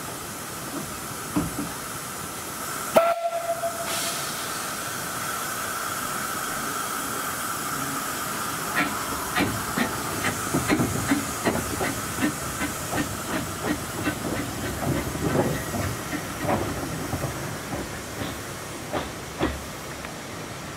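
Talyllyn Railway narrow-gauge steam locomotive giving a short whistle about three seconds in, then moving off with steam hissing from its cylinders. Its exhaust beats at about two a second begin partway through and fade as it draws away.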